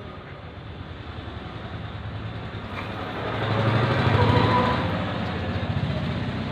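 A motor vehicle engine running with a low, steady throb that grows louder about three seconds in and eases off again after about five seconds.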